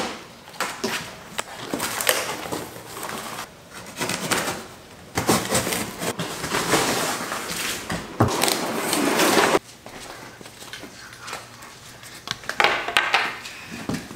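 Cardboard shipping box being opened and pulled apart: flaps and panels scraping and rustling, with crinkling plastic wrap and scattered knocks and clicks. The longest stretch of scraping runs from about five to nine and a half seconds in.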